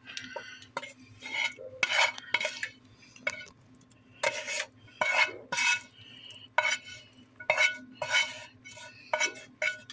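A utensil scraping and clinking against a metal skillet as cooked ground meat is pushed out of it into a pot of cheese sauce, in a run of irregular short scrapes.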